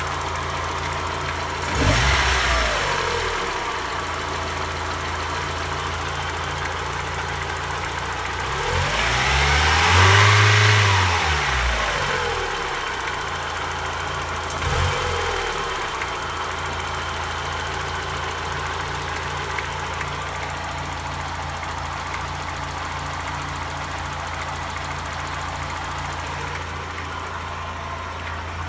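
1991 Mazda Miata's 1.6-litre four-cylinder engine idling, blipped briefly about two seconds in, revved up and back down in the middle, and blipped again at about fifteen seconds. Under the running there is a faint knock from the bottom of the block, which the owner suspects may be a spun bearing.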